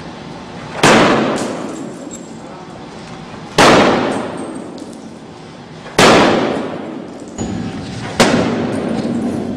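A sledgehammer strikes a pane of Level 3 one-way security glass four times, heavy blows about two and a half seconds apart with a lighter knock between the last two. Each strike is a sharp crack that rings and fades slowly. The glass crazes into a spiderweb of cracks but holds.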